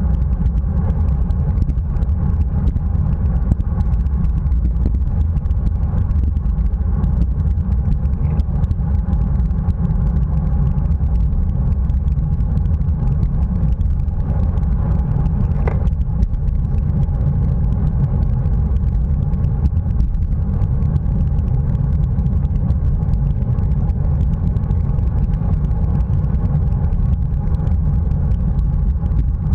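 Steady wind rumble and road noise on a bicycle-mounted action camera's microphone while riding at race speed in a pack of road bikes.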